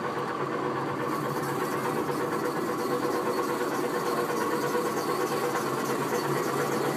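Kiddie ride tractor car running along its guide track, giving a steady motor hum with a low rumble.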